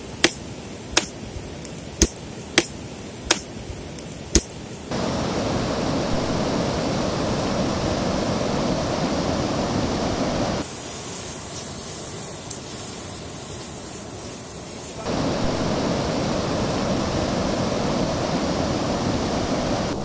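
Sharp clicks, about eight over the first few seconds, from a knife working at a spit-roasted chicken. Then the steady rush of river rapids and a waterfall, dropping quieter for a few seconds in the middle and coming back loud.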